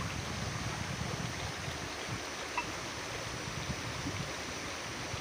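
Steady rush of flowing water from a waterfall and stream.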